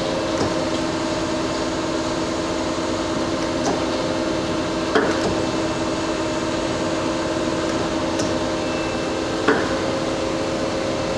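Mazak CNC turning center running with a steady hum of several fixed tones, as its tailstock quill is worked. Short mechanical knocks sound over the hum, the clearest about five seconds in and again about four and a half seconds later, as the quill is driven in and out.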